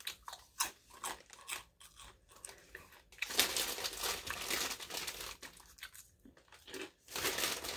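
Potato chips crunched and chewed close to the microphone: scattered crisp crackles at first, then a dense bout of crunching in the middle. A chip bag crinkles as well.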